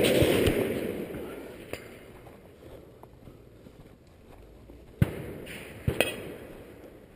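Rifle shots on an open range, each followed by a rolling echo. The echo of one shot fades over the first second or so, and two more shots come about five and six seconds in.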